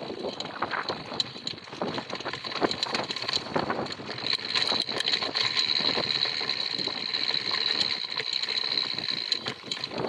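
Mountain bike riding a dirt trail: the tyres rumble over dirt and rocks, and the bike gives off frequent rattles and knocks. A steady high-pitched buzz comes in about four seconds in and fades near the end.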